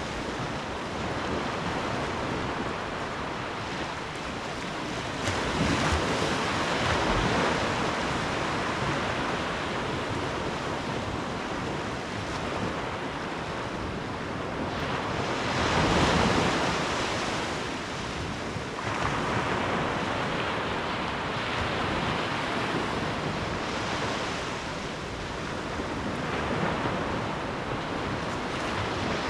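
Ocean waves breaking and washing up, a steady rush that swells with each breaker, the biggest about five seconds in and again about fifteen seconds in. Wind buffets the microphone.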